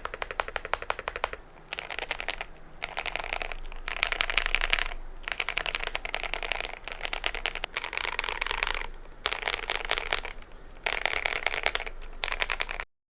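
Typing on a GMMK Pro mechanical keyboard with stock KTT linear switches: rapid keystroke clatter in bursts of a second or two, with brief pauses between them. It stops abruptly near the end.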